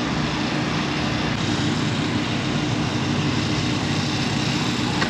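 An engine running steadily with a constant low hum, no change in pace.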